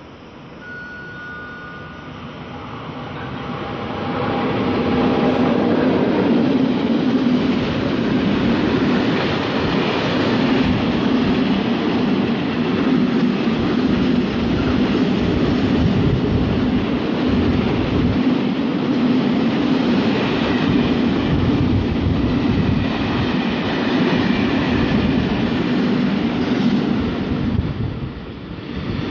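Freight train of container flat wagons carrying tank containers passing close by. A rumble builds over the first five seconds as it approaches, then the wagons roll past in a loud, steady rumble that eases briefly near the end.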